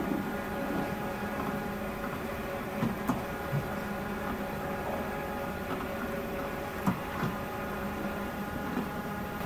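Green Proteus quilting-waste recycling machine running as quilted padding feeds along its conveyor into the rollers: a steady hum with several even tones, and a few sharp clicks about three seconds in and again about seven seconds in.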